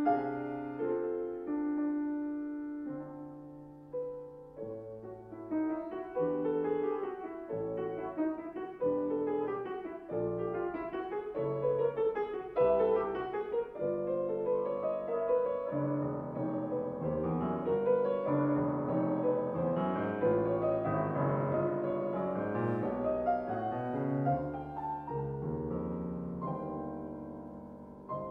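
Fazioli grand piano played solo: a few held chords die away, then the playing grows fuller and busier before fading out near the end.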